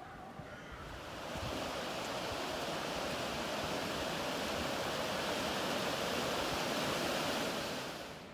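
Steady rush of flowing water, fading in about a second in and fading out near the end.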